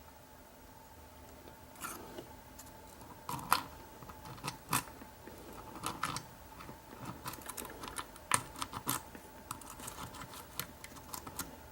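Irregular metallic clicks and scrapes of a cheap steel rake pick being worked against the pins of a pin-tumbler lock under a tension wrench. They start about two seconds in and come in uneven bursts, a few much sharper than the rest.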